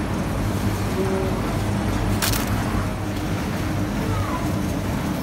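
Shopping trolley rolling over a tiled supermarket floor: a steady low rumble from its wheels and wire basket, with one sharp clatter a little over two seconds in.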